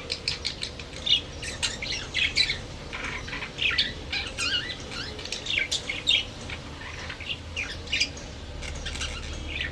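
Budgerigars chirping and squawking: a dense run of short, quick calls, several birds overlapping.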